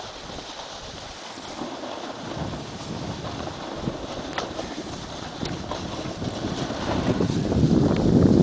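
Wind buffeting the microphone, mixed with skis hissing over snow. The rush grows much louder over the last second or two.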